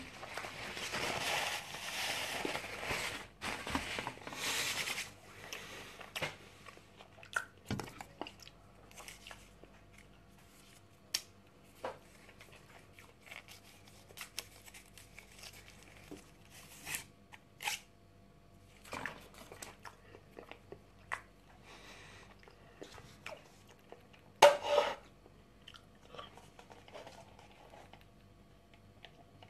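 Paper fast-food packaging rustling and crumpling for about the first five seconds, then quiet eating: chewing with scattered small clicks of handling. A short, louder rustle comes about 25 seconds in.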